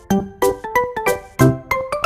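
Background music: a bouncy tune of short, plucked-sounding keyboard notes, several a second.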